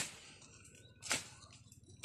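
Weeds and squash vines being cleared by hand: two brief rustling strokes through the undergrowth, one at the very start and one about a second in.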